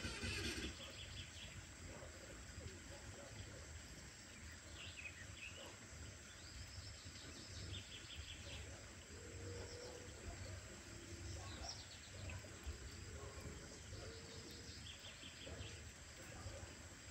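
Faint background with scattered high bird chirps and short trills over a low rumble.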